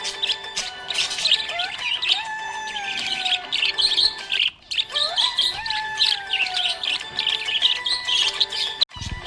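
Budgies chirping and twittering rapidly and continuously, with a short break about halfway through, over background music with gliding notes.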